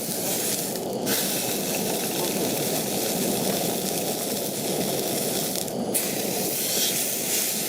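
Steady hiss of an open wood campfire with whole mackerel grilling over it.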